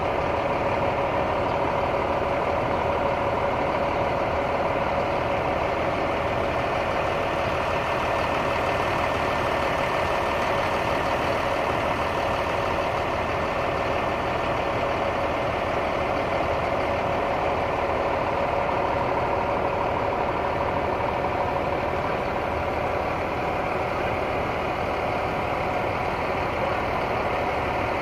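Intercity coach's diesel engine idling, a steady hum with a steady whine over it.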